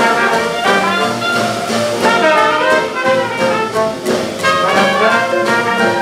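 Traditional New Orleans jazz band playing live: trumpet, trombone and clarinet together over piano, string bass and drums, with a steady beat.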